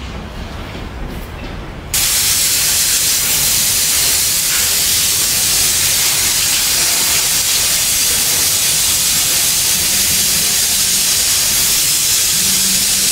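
Steady, loud hiss of water spraying, starting abruptly about two seconds in after a low rumble.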